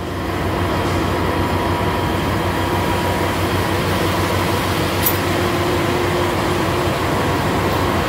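Concrete-pumping machinery running steadily while concrete is pumped through the delivery pipe, a constant low drone with a faint steady whine above it.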